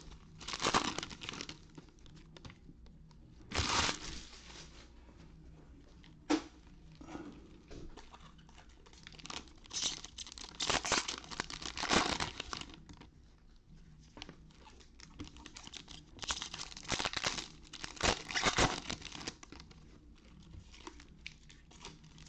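Trading card packs of 2021 Panini Score football being torn open, their wrappers tearing and crinkling in irregular bursts with quieter gaps between, and one sharp tap about six seconds in.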